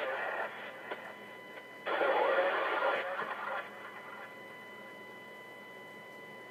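Police scanner radio traffic streamed from an online live audio feed through computer speakers: a short burst of two-way radio transmission, then another lasting about a second and a half, both thin and band-limited. Between and after them a faint steady whine.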